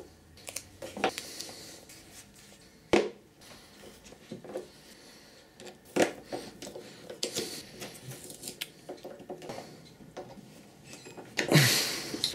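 Hands fitting a wooden block and a metal pivot pin onto a black stand plate: scattered clicks and knocks with light scraping, two sharp clicks about 3 and 6 seconds in, and a louder bump near the end.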